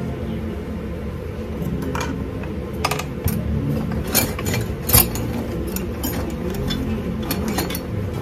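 Irregular light clicks and taps of small objects being handled on a workbench, the loudest about five seconds in, over a steady low hum.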